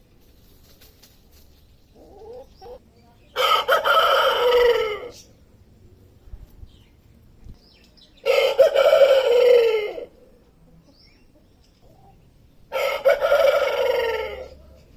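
Rooster crowing three times, each crow about two seconds long and ending in a falling note, with a few soft short calls just before the first.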